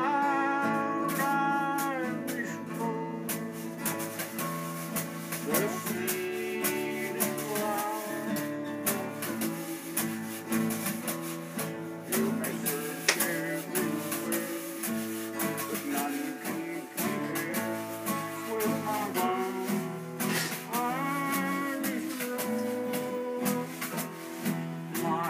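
Acoustic guitar strummed through a folk tune, with a wavering melody line over the chords.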